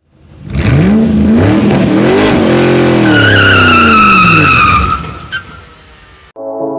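Car engine revving up and down, with a long, high tyre squeal over it from about three seconds in. It fades and cuts off abruptly near the end, and music takes over.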